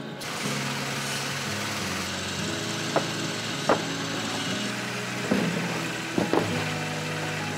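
Factory machinery running steadily with a low hum, and several sharp metallic knocks in the second half.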